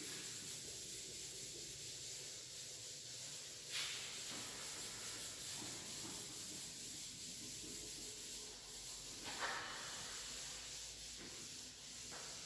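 Board eraser rubbing across a chalkboard, wiping off chalk. The rubbing is faint, with a louder swipe about four seconds in and another a little after nine seconds.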